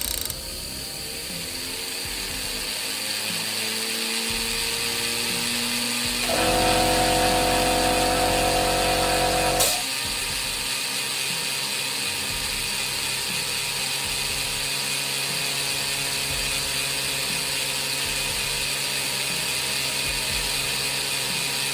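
12-volt solenoid valve chattering, opening and closing rapidly as the pressure switch trips around its 30 psi set point, with steady hissing of pressure. From about six seconds in, a louder steady hum with several tones is cut off by a sharp click near the ten-second mark. This short-cycling will burn out the solenoid valve.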